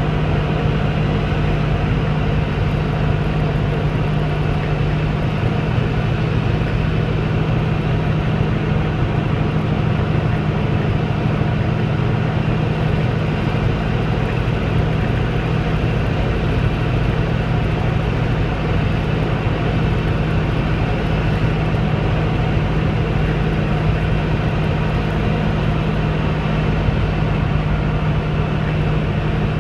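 Diamond DA20 light airplane's piston engine and propeller running steadily, a constant drone at an even pitch.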